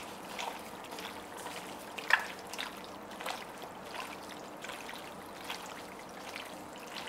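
Wet squelching and squishing of raw chicken neck meat being kneaded by a nitrile-gloved hand with seasoning and sesame oil in a glass bowl: short, irregular squelches, the sharpest about two seconds in.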